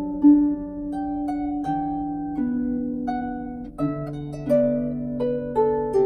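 Salvi Mia 34 lever harp with silkgut strings, played with both hands: single plucked melody notes over lower notes, each note ringing on into the next.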